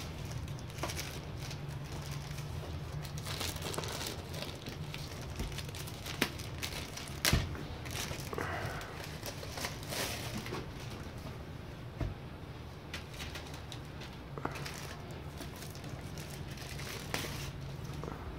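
Clear plastic bag crinkling and rustling as it is worked off a metal-platformed digital postal scale, with a few sharp knocks, the loudest about seven seconds in. A steady low hum runs underneath.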